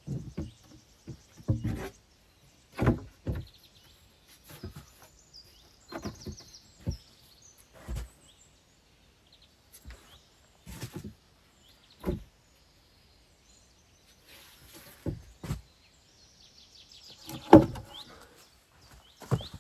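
Split firewood being set down and stacked piece by piece: a series of short wooden knocks and thuds every second or two, the loudest near the end. Birds chirp faintly in the background.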